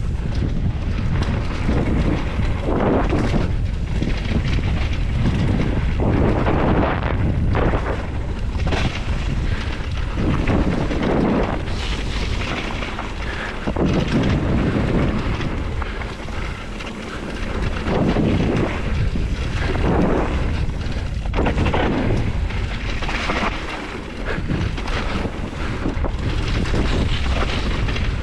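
Mountain bike descending a rough trail at speed: wind buffeting the microphone over steady tyre noise, with frequent knocks and rattles from the bike over the ground.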